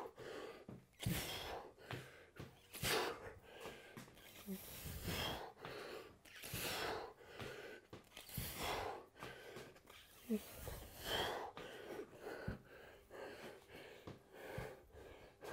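A man breathing hard under exertion during kettlebell squats and reverse lunges: forceful breaths in and out, repeating every second or two.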